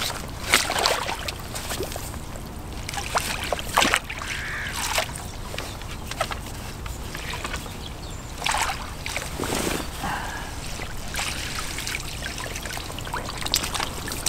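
River water splashing and trickling, with irregular short splashes every second or so over a steady hiss.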